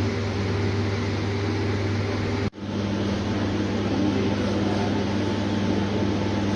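Steady low mechanical hum with a constant low tone. It cuts out abruptly for a moment about two and a half seconds in, then resumes.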